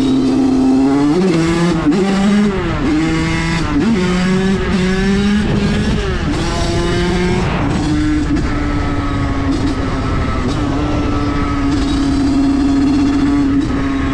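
Two-stroke engine with an 86 TPR kit revving hard and loud, its pitch climbing and falling several times in the first half. It then holds a steady high note for several seconds before dropping off near the end.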